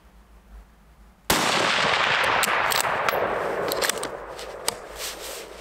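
A single .223 rifle shot from a Tikka T3x CTR about a second in, cracking out suddenly and echoing away over several seconds. Then a few sharp metallic clicks as the bolt is worked to chamber the next round.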